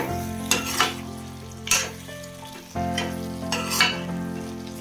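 A metal spoon stirring thick gongura chicken curry in a stainless-steel pot, scraping the pot about five times over the sizzling gravy. The oil has separated and risen to the top, the sign that the chicken is cooked.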